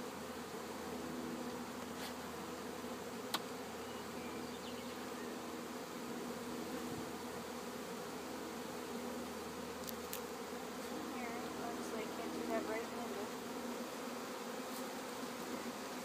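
Steady buzzing of a package of honey bees, a hum held on several low steady tones, with a few faint clicks.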